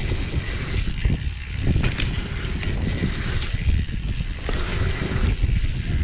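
Wind rushing over a rider-worn camera's microphone, with the dirt jump bike's tyres rumbling over packed dirt at riding speed.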